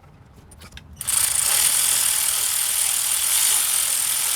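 A ratchet running the nuts down onto the starter's wire terminal studs. The loud steady ratcheting starts about a second in.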